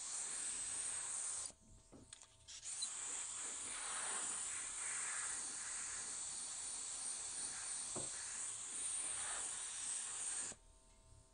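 Aerosol spray can hissing as it sprays paint onto a saw handle: a short burst that breaks off about a second and a half in, then one long continuous spray that stops near the end.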